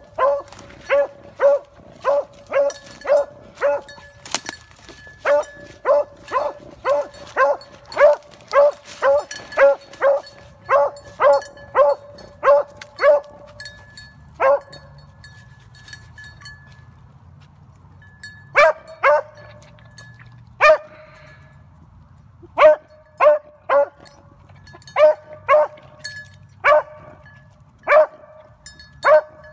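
A beagle baying while it runs a rabbit's scent trail: a steady run of short barks about two a second. The barks break off for a few seconds past the middle, then resume in shorter bunches.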